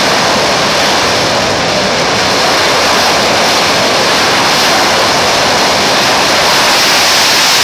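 Twin M88 turbofan engines of a Dassault Rafale M running at full power on a carrier catapult just before launch: a loud, steady jet roar.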